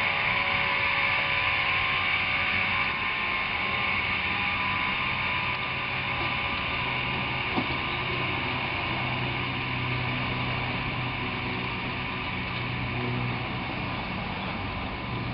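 Large overhead garage door moving on its electric opener: a steady mechanical hum with several steady tones, easing slightly in level, and a single light click about halfway through.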